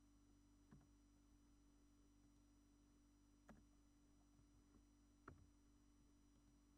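Near silence: a steady low electrical hum, with three faint short clicks spread over a few seconds, the last the loudest.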